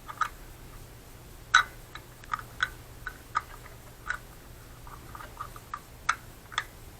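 Scattered small clicks and taps, uneven in timing with the loudest about a second and a half in, as the oil strainer is fished out of the fill hole of a Nardi high-pressure air compressor's crankcase. A faint steady low hum lies under them.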